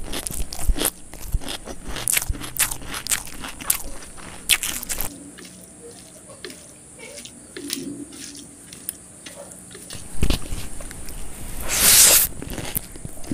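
Close-miked eating sounds of mutton biryani eaten by hand: chewing with many short wet clicks and smacks, and a louder rush of noise near the end.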